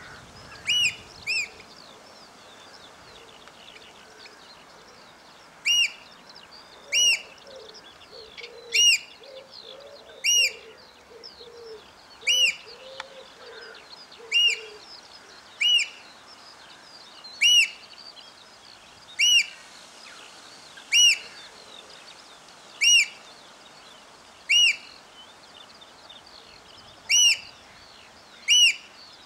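Eurasian oystercatcher piping: a series of loud, short, high call notes, two close together near the start, then after a pause of a few seconds one roughly every second and a half to two seconds. Fainter chirps of other birds carry on underneath.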